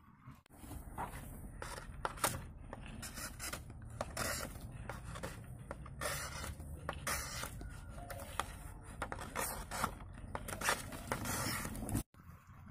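Knife blade cutting and scraping a thin white sheet in short, irregular strokes. The sound stops abruptly near the end.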